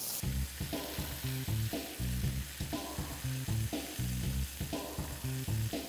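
Skewered pork belly sizzling on a hot grill pan, a steady hiss, with background music with a steady bass beat underneath.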